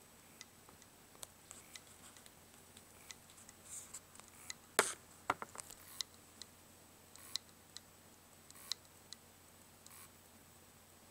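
Western Digital WD3200BEVT 2.5-inch laptop hard drive clicking irregularly as its read/write head arm knocks: the sign of a failed drive. The loudest click comes about five seconds in, with a few short scraping noises between the clicks.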